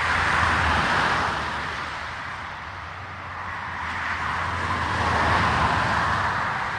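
Two cars pass by on an asphalt road. Each tyre-and-engine hiss swells up and fades away, the first right at the start and the second peaking about five seconds in.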